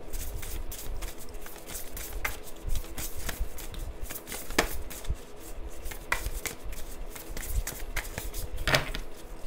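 Cards being handled and shuffled: irregular sharp clicks and snaps of card stock, several loud ones about four and a half seconds in and near the end, over a steady faint hum.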